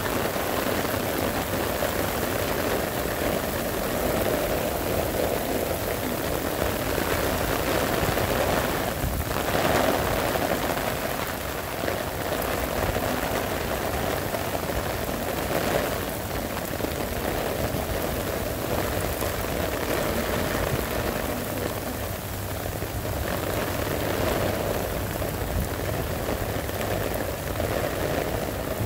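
Heavy rain pouring down steadily onto paving and street, a continuous even hiss of a downpour.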